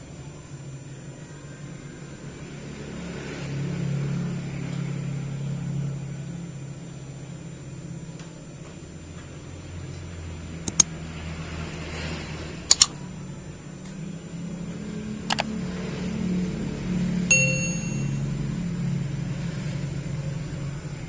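A low, steady hum runs throughout. Near the middle come a few sharp clicks, two of them paired, and a little later a single short ding.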